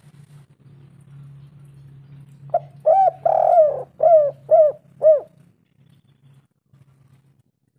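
Spotted dove cooing: a phrase of about six coos beginning about two and a half seconds in, each note arching and falling in pitch, the third one longer than the rest. A faint low hum lies underneath.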